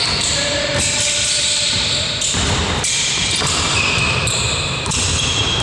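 Basketball dribbled and played on a sports-hall court during a game, with the general din of the play.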